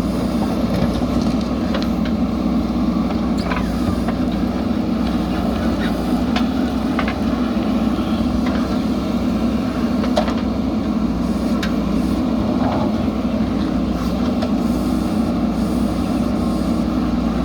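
JCB backhoe loader's diesel engine running steadily under work, with occasional short knocks and clanks.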